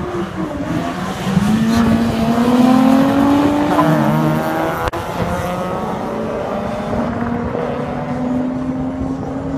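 Two cars accelerating hard down a drag strip from the start line. The engine notes climb, drop at a gear change about four seconds in, then climb again as the cars pull away.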